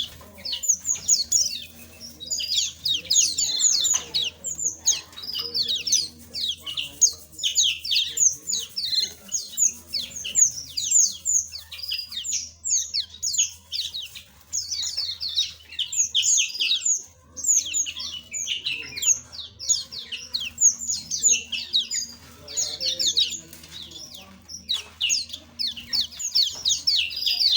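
A flock of small aviary birds chirping constantly, many short, high calls overlapping in quick succession.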